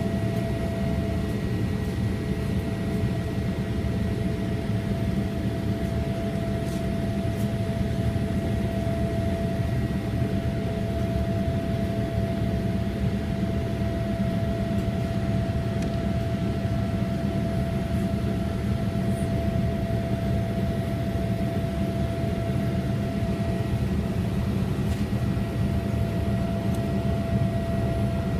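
Boeing 787-8 airliner's jet engines and airflow: a steady low rumble with a constant humming tone through it, unchanging in level.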